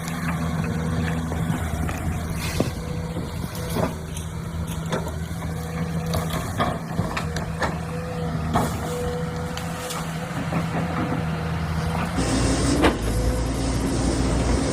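Excavator's diesel engine running steadily, with scattered sharp knocks from the machine working rock. The sound changes abruptly about twelve seconds in.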